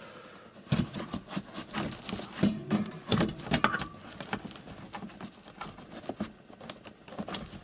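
Irregular clicks and rattles of a wire cage grate being handled and shifted, loudest in the first half.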